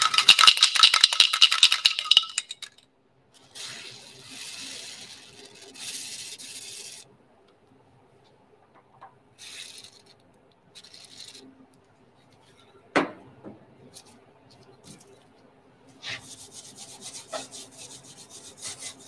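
Corrosion X penetrating lubricant hissing from an aerosol can in short bursts onto the rusted Dzus fasteners of a metal equipment panel, followed by a hand tool scraping and rubbing at the fasteners. There is one sharp knock about two-thirds of the way through.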